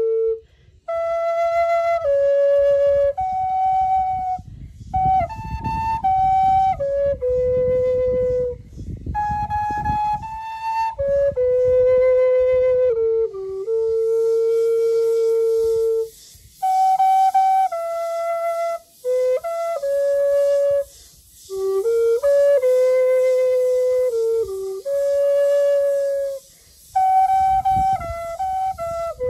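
End-blown bamboo flute playing a slow, free melody of long held notes that step up and down, in phrases broken by short pauses for breath.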